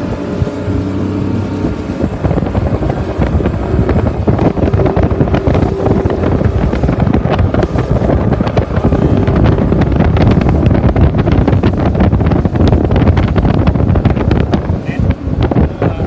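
Boat engine running, its steady hum clearest at first and soon buried under loud wind buffeting on the microphone.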